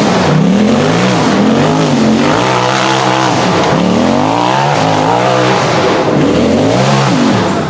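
Off-road UTV race buggy's engine revving up and down over and over as the throttle is worked, its pitch rising and falling roughly once a second.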